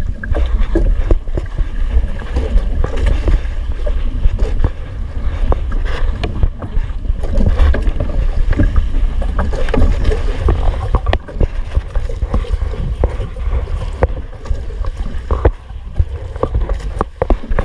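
Wind buffeting the microphone and waves slapping against the hull and outriggers of a bangka outrigger boat at sea, a loud, continuous rushing rumble with scattered small knocks.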